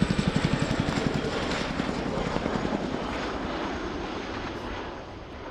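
Boeing Chinook HC.6 tandem-rotor helicopter passing with rapid, even rotor blade slap, fading as it moves away.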